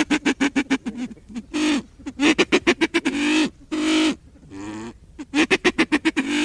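Silver pheasant cackling: fast runs of short clucks, about eight a second, broken by a few longer, drawn-out call notes.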